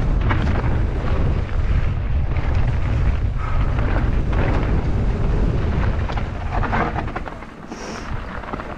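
Wind buffeting a helmet-mounted camera's microphone as a mountain bike rides the trail, a loud rumble with scattered rattles from the bike over rough ground. The rumble eases about seven and a half seconds in.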